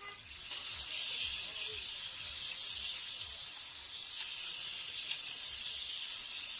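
Chicken pieces sizzling in hot oil on a large flat iron griddle as metal spatulas turn and press them: a loud, steady hiss that rises sharply about half a second in.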